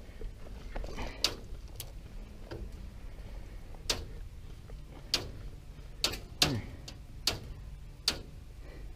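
Airsoft guns firing single shots, about eight sharp clicks at irregular spacing over several seconds.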